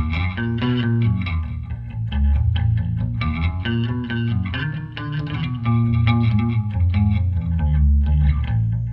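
Electric bass guitar played through a Muslady passive DI box, blended with two pencil microphones on a Mesa Engineering bass cabinet and a room reverb mic, unmixed. A line of low plucked notes, each held for around half a second to a second.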